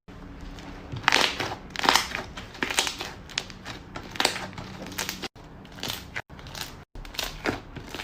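Slime being pressed and squeezed by hand, a noisy squish roughly every second, broken by a few abrupt cut-offs where short clips are spliced together.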